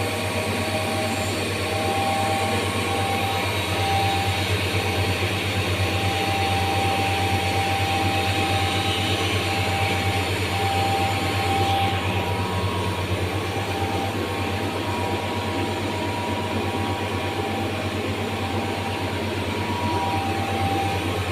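CNC grinding machine running with a steady low hum and hiss, and a thin whine that comes and goes.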